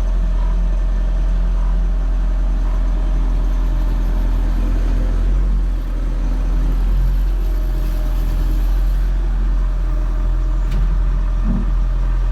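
Bobcat Toolcat 5600's turbocharged Doosan diesel running, heard from inside the closed cab as a steady low drone. A single light click sounds near the end.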